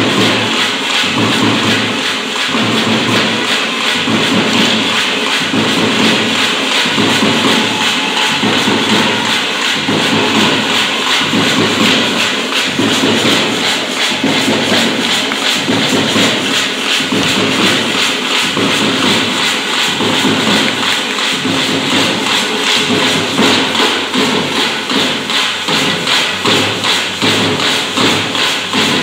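Group of Tamil parai frame drums beaten with sticks in a fast, steady, driving rhythm.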